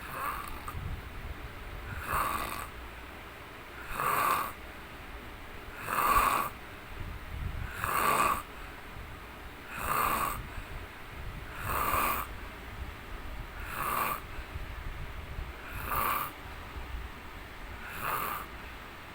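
A man snoring in his sleep: short, regular snores about every two seconds, about ten in all.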